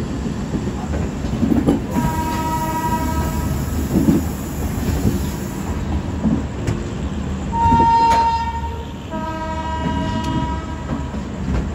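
Passenger train running with a steady low rumble and some wheel clicks, while a locomotive horn sounds three times. The first blast comes about two seconds in and lasts a second and a half. A louder blast comes near eight seconds, followed closely by a third.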